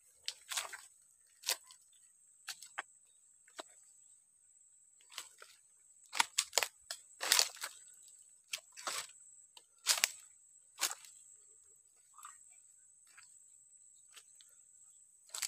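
Dry leaf litter and twigs crunching and crackling underfoot as someone moves through it, in irregular bursts roughly every second, with a cluster of louder crackles in the middle. A steady high-pitched whine runs underneath.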